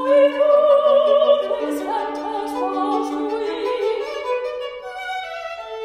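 A mezzo-soprano singing with vibrato while accompanying herself on the violin, bowed notes sustained beneath the voice.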